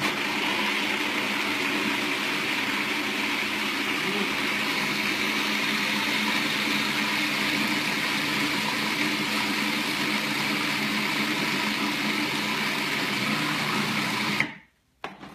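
Electric food processor running steadily as it purées a thick garlic scape and walnut pesto, then cutting off abruptly about fourteen and a half seconds in.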